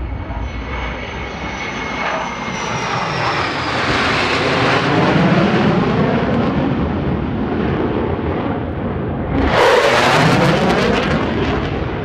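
Four F-16 Fighting Falcon jets flying over in formation: a whine falls in pitch as the roar swells to its loudest with the jets overhead. About nine and a half seconds in, a second, sharper rush of jet noise starts suddenly and then fades.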